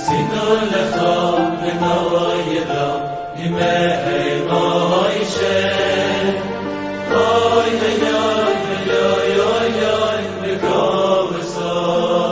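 Music: a Hebrew Jewish song, a man's voice singing over instrumental backing.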